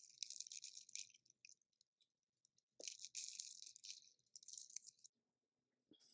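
Flaky baked pie crust crackling and crunching as a metal pie server cuts down through it, in two bursts of quick crackles, the second starting about three seconds in. A soft knock comes near the end.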